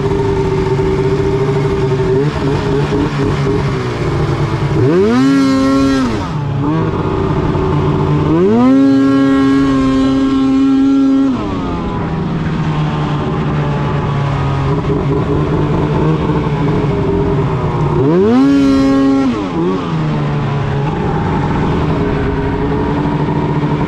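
Arctic Cat M8 snowmobile's 800cc two-stroke twin engine running under way at a steady pitch, with three bursts of throttle where the revs climb, hold and fall back: a short one about five seconds in, a longer one held high for about three seconds near the middle, and another short one about three quarters of the way through.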